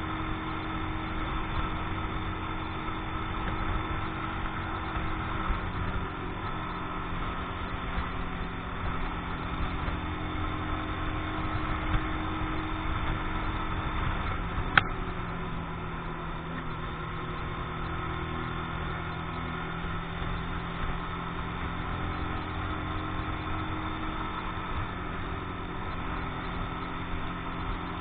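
Keeway X-Light 125 cc motorcycle's single-cylinder engine running steadily at cruising speed on a new engine still being run in. A single sharp click about halfway through.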